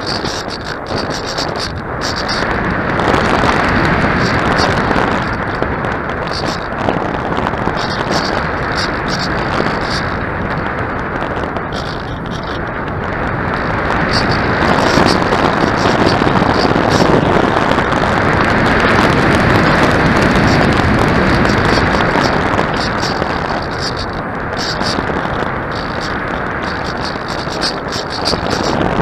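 Wind rushing over the microphone, a steady noise that swells and eases every few seconds, with short faint high ticks coming and going.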